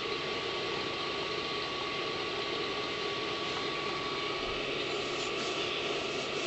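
A steady mechanical hum with a faint, constant high whine.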